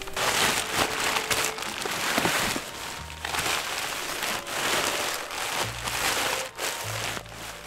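Shiny nylon fabric of a black sleeping bag rustling and crinkling in repeated handfuls as it is pulled and bunched by hand.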